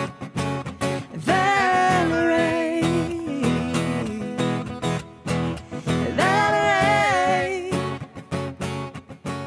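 Acoustic guitar strummed in a choppy, percussive rhythm under a woman's voice. She sings two long held notes, the first about a second in and the second around six seconds in. The strumming thins out and fades near the end as the song closes.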